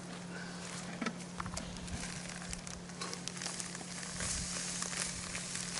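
Plastic bags rustling and crinkling as they are handled, with many quick, irregular crackles.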